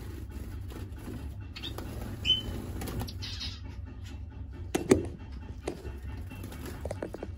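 Small caged finches: one short high chirp about two seconds in, light clicks and a sharper knock about five seconds in, over a steady low hum.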